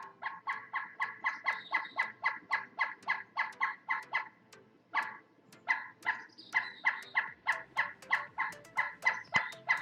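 Pileated woodpecker making an even series of short, sharp, ringing notes, about four a second, with a brief break a little before the middle.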